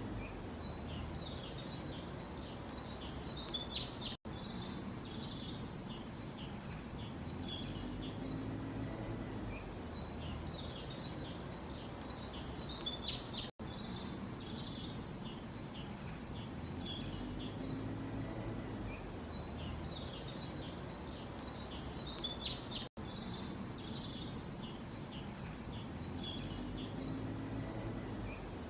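Small birds chirping rapidly and continuously in high, quick notes over a low rumbling background noise. The same few seconds of birdsong repeat as a loop about every nine seconds, with a brief dropout at each join.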